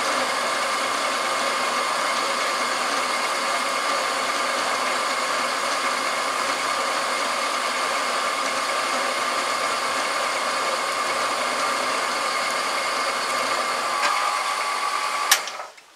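Homemade metal lathe running under a parting-off cut: a steady machine sound with whining tones from the drive as the parting tool cuts into the spinning metal shaft, with no chatter. Near the end there is a sharp click and the sound cuts off suddenly as the tool digs in and the cut stops.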